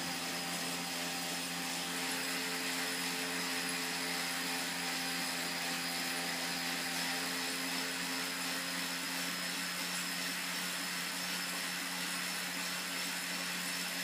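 Bicycle spinning on a roller trainer: a steady mechanical whirring drone with a faint high whine, holding the same pitch throughout.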